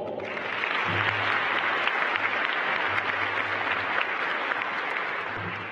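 Audience applauding, a dense patter of many hands that tapers off near the end.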